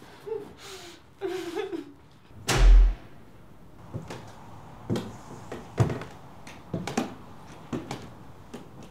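A woman's strained breathing and short whimpers, then a loud door bang about two and a half seconds in, followed by footsteps on wooden boards, about one a second.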